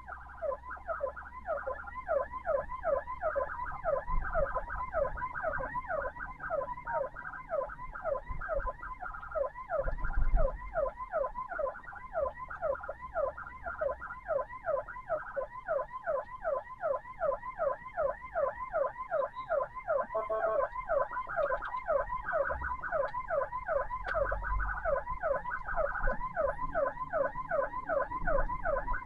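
Ambulance siren sounding a fast yelp, its pitch sweeping up about three times a second with a steady high tone beneath, over a low rumble.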